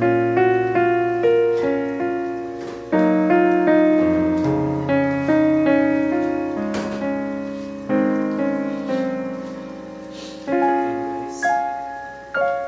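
Background solo piano music: single notes and chords struck and left to fade, in an unhurried melody.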